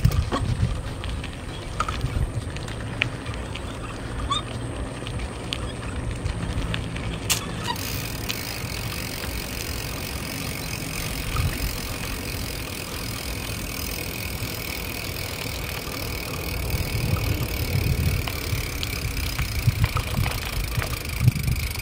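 Bicycle riding on a concrete road: wind rumbling on the microphone over tyre noise, with a few small clicks and rattles from the bike.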